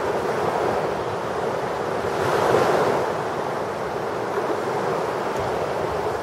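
Small sea waves breaking and washing up a sandy beach in a steady wash, with one wave swelling louder about two and a half seconds in.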